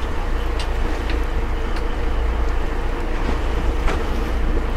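Steady low drone of a fishing boat's engine running, with wind and sea noise and a few faint sharp ticks.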